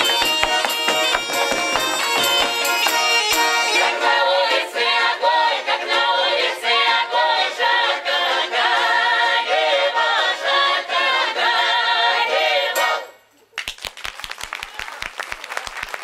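A Russian folk ensemble plays and sings: accordion and other folk instruments first, then women's and men's voices singing a lively folk song in chorus over the accordion. The song stops abruptly about 13 seconds in, and the audience breaks into applause.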